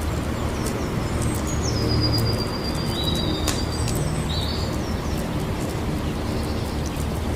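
Wood campfire burning with a steady low rumble and frequent sharp crackles and pops. A thin high whistle holds for a second or two about two seconds in.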